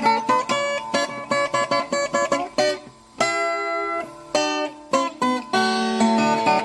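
Viola caipira playing an instrumental moda de viola: quick runs of plucked notes, a brief break about three seconds in, then a chord left ringing for about a second before the picking starts again.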